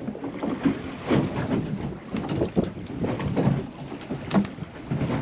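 Wind buffeting the microphone over choppy sea water splashing and lapping against a small boat's hull, in uneven gusts and slaps.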